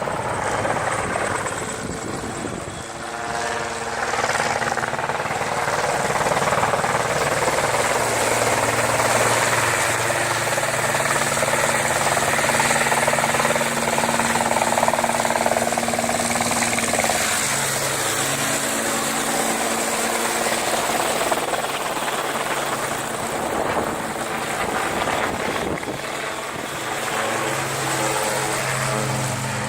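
Helicopter flying, a steady droning hum that shifts in pitch a couple of times, about halfway through and near the end.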